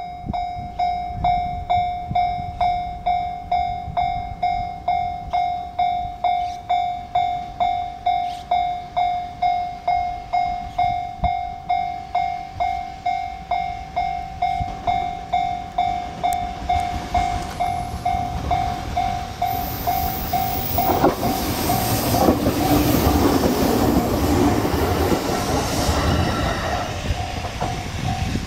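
A Japanese level crossing warning bell rings about twice a second. About 21 seconds in, an E127 series electric train passes over the rails for several seconds while the bell keeps ringing.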